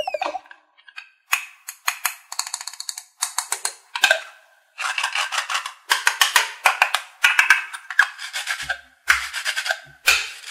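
Velcro on a toy cut-apart kiwi ripping as the two plastic halves are pulled apart and pressed back together, a crackling rip about once a second. A few soft bumps near the end.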